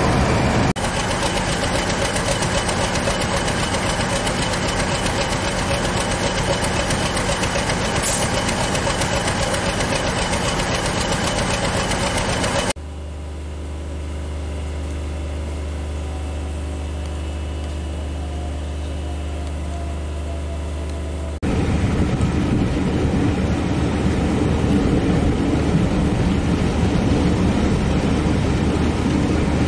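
Heritage diesel locomotive engine running loud and steady. About 13 seconds in, the sound drops to a quieter, steady low hum of the engine idling while the train stands at a platform, heard from a carriage. About 21 seconds in it turns loud again as the train gets under way.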